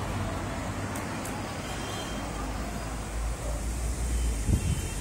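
Vehicle running, a steady low engine and road rumble, with a few short knocks about four and a half seconds in.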